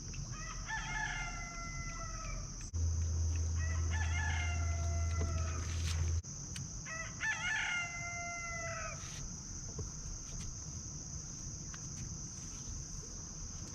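Rooster crowing three times, each crow a long call that drops in pitch at its end, over a steady high drone of insects.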